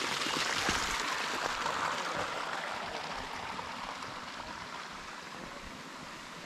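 Steady rush of water from the low-flowing Sallent de Rupit waterfall and its stream, growing gradually fainter over the last few seconds.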